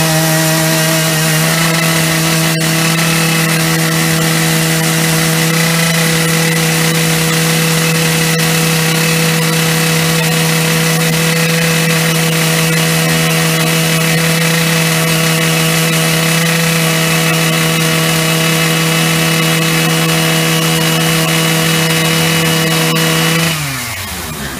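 Husqvarna 3120 XP two-stroke chainsaw with a 60-inch bar running at full throttle, held at steady revs as it rips along a log in a chainsaw mill. Near the end the throttle is released and the revs fall quickly toward idle.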